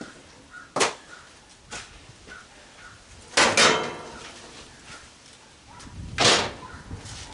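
Metal stove parts being handled during a teardown: a sharp click, then a loud clatter that rings briefly about three and a half seconds in, and another loud knock near the end.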